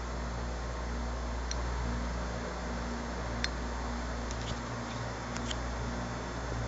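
Aquarium pump running: a steady low hum under a constant watery hiss, with a few faint ticks.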